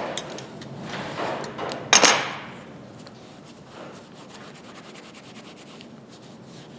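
Metal slip-joint pliers handled on a workbench: a few knocks near the start, a loud clack about two seconds in, then faint rubbing and light clicks.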